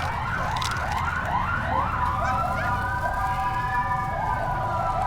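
Electronic siren wailing in a rapid yelp of rising sweeps, about three a second. About two seconds in it switches to a long held tone that rises slowly and falls back, and quick rising sweeps come back near the end.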